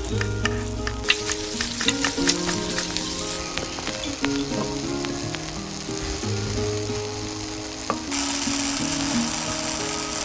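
Background music of held, changing notes over a bass line, over a steady sizzling hiss with scattered crackles and clicks.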